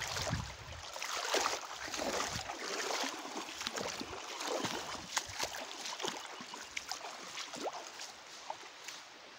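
Shallow river water splashing and sloshing as someone wades through it and a cast net is drawn through the water, with many small sharp splashes. It is loudest in the first few seconds and thins out toward the end.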